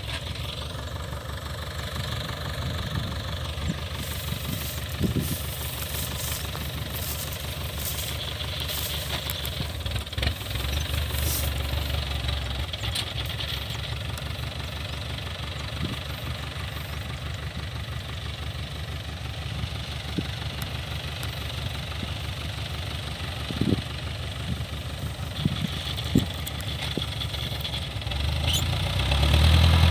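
Kubota DC-105X rice combine harvester's diesel engine running steadily, with a few brief knocks and rattles. Near the end the engine grows louder and deeper.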